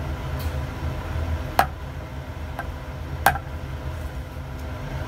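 Sharp ticks of a rusted steel bolt and nut knocking against the inside of a glass jar of acid as it is pushed around with a polyethylene cord. There are a few ticks, the two loudest about a second and a half apart, over a steady low hum.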